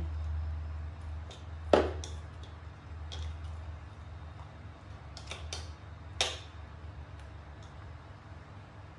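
Scattered light taps and clicks of things being handled on a tabletop, with two sharper knocks about two seconds in and about six seconds in, over a low steady hum.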